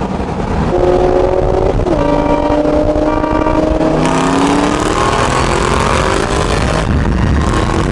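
Supercharged V8 muscle-car engines at wide-open throttle. The engine note climbs steadily, drops sharply at an upshift about two seconds in, then climbs again.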